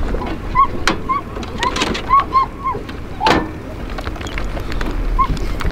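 Hounds yipping and whining in short, high rising-and-falling cries, several in quick succession, as they are let out onto a mountain lion track. A sharper single sound, a bark or knock, stands out about three seconds in, over a low rumble.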